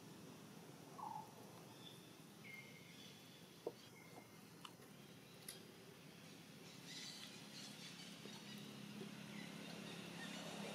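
Near silence: faint outdoor background with a few brief, soft chirps and clicks. A low hum of a passing vehicle builds near the end.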